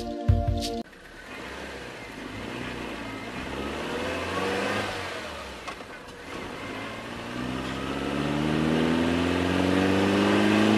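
A motorcycle engine running, then accelerating: its pitch rises steadily through the last few seconds as it gets louder.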